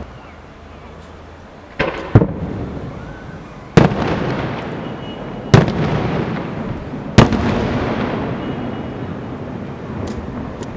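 Aerial firework shells bursting in the night sky: five sharp bangs, the first two close together and the rest about two seconds apart. Each bang has a long echoing tail that dies away.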